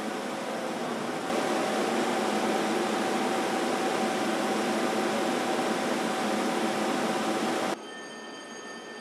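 Paper machine rollers running: a loud, steady mechanical rush with a constant hum, stepping up in level about a second in. Near the end it cuts off abruptly, giving way to a quieter machine hum with several thin high steady tones.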